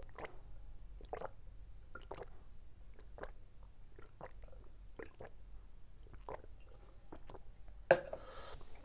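A person gulping a drink from a plastic cup, one swallow about every second, close to a clip-on microphone. Near the end there is a sharp click, then a breathy exhale.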